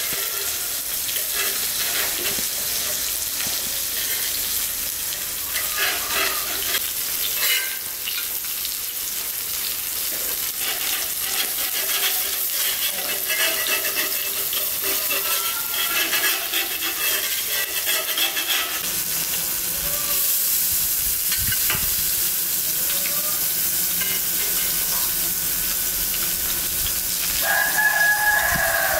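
Salmon fillets sizzling steadily on a hot griddle plate and ribbed grill pan. A rooster crows once near the end.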